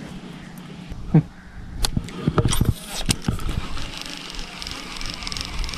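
Baitcasting reel being cranked to wind in line, a fast, fine, steady whirr that starts about halfway through. It follows a few sharp clicks and knocks of handling.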